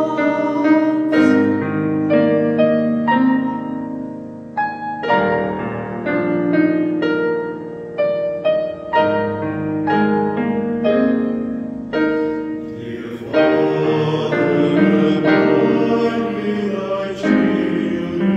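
Mixed choir of men and women singing a slow hymn in parts, with piano accompaniment.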